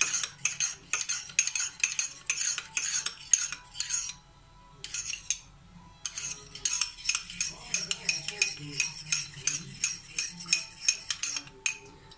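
Metal teaspoon stirring an oil and turmeric paste in a small glass jar, clinking and scraping against the glass in quick, even strokes. The stirring pauses for about two seconds around the middle, then resumes.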